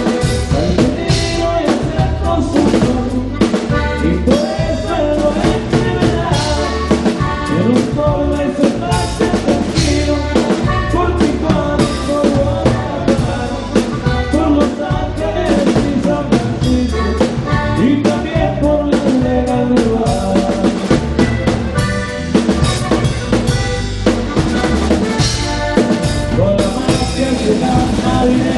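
Live band playing an instrumental passage of the song, the drum kit prominent with kick and snare keeping a steady beat under the melody instruments.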